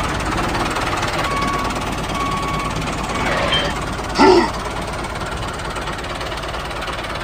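Small engine of a DIY mini tractor running steadily with a knocking rattle. Two short beeps sound early on, and a brief call about four seconds in.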